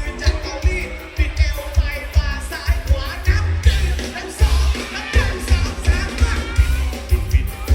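Live band playing with a singer's voice over it and a steady, heavy kick-drum beat, amplified through a concert PA.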